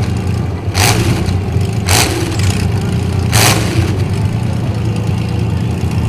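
Demolition derby trucks' engines running with a steady deep rumble. Three short, sharp bursts of noise cut through it in the first half, about a second apart.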